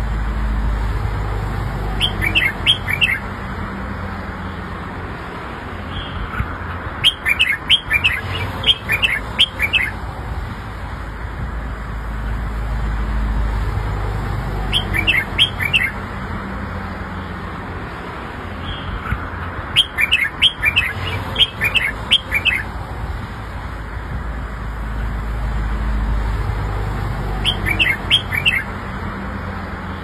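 Red-whiskered bulbul singing: five bursts of quick high notes, each phrase lasting one to three seconds, with the same phrases coming round again about every 13 seconds. A steady low rumble lies underneath.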